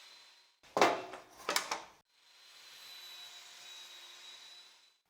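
Pine boards being worked by hand: two loud, short rasping strokes about a second in, between stretches of a faint steady hiss.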